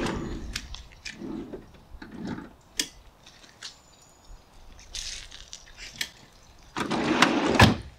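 Gear being handled at the open back of a van: scattered clicks and knocks with soft rustling, then a louder scuffling stretch near the end that finishes in a sharp knock.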